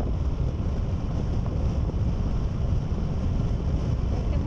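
Steady low rumble of road and wind noise from a car moving at speed, with wind buffeting the phone's microphone.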